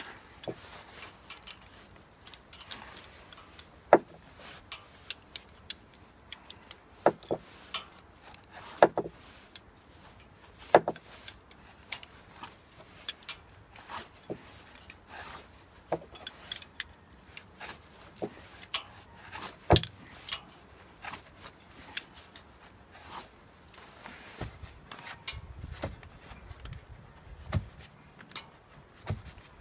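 Irregular metallic clicks and clinks of a 9/16 wrench turning the nut down on a 3/8-inch wedge anchor bolt set in granite, about one every second or so, a few of them sharp and loud.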